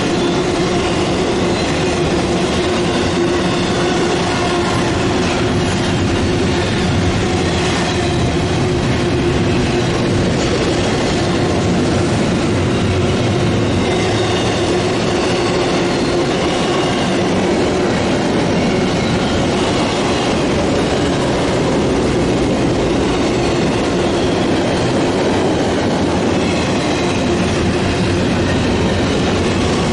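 CSX freight train of double-stack container cars rolling past close at hand: a steady, loud rolling noise of steel wheels on rail, with a faint high wheel squeal coming and going.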